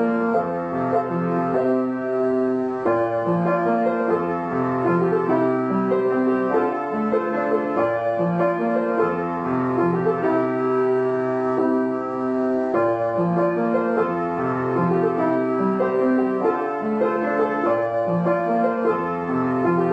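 Background music: a piano piece playing, a steady sequence of sustained notes and chords.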